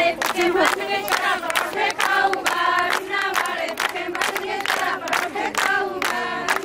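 A group of women singing together in chorus, kept in time by handclaps at about three a second.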